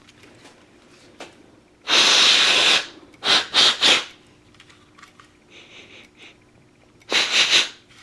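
Can of compressed air hissing in blasts into a smoke detector to clear out leftover test smoke so it won't set the alarm off again: a blast of about a second about two seconds in, two or three short puffs right after, and another blast near the end.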